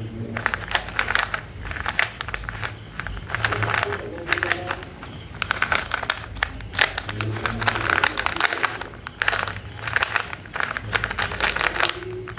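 Stickered 3x3 Rubik's cube being scrambled by hand: rapid clicking and clacking of its plastic layers turning, in quick runs with brief pauses.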